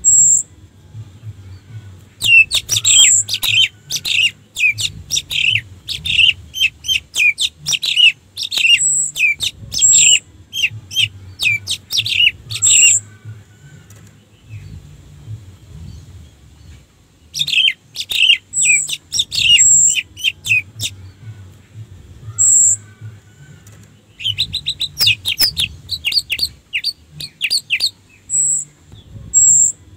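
Orange-headed thrush singing: three bouts of rapid, varied whistled phrases, the first running about ten seconds from a couple of seconds in, the others shorter, with single thin high notes in the pauses between them.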